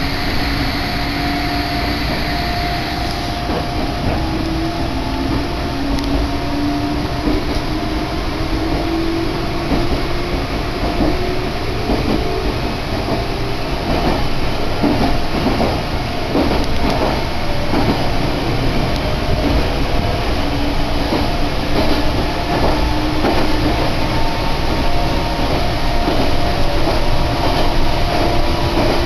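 Meitetsu Mikawa Line electric train running, heard from inside the carriage: a steady rumble of wheels on rail with a hum that drifts slowly up and down in pitch, and some clacking over the rail joints around the middle.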